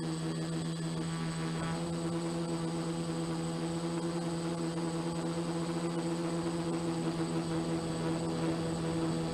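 F450 quadcopter's four electric motors and propellers buzzing steadily while it hovers, the pitch holding level.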